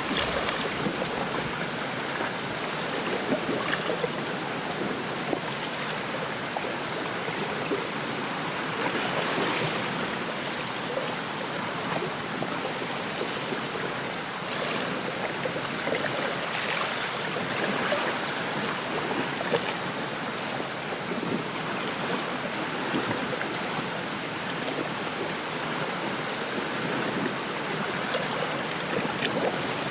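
Small lake waves lapping and splashing at the shore, with wind rustling through a reed bed; a steady rush with many small swells.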